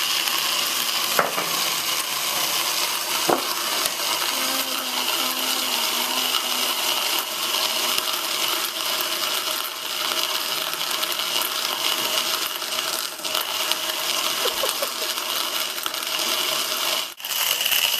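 Hand burr coffee grinder driven by a power tool, grinding coffee beans with a steady high whine and the crunch of the burrs, with a few sharp ticks along the way.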